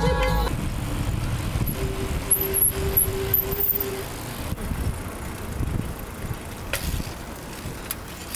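Ride-along sound from among a column of cyclists: a fluctuating low rumble of road and wind noise from a moving bicycle, with a steady tone for about two seconds and a single click near the end. Background music cuts off about half a second in.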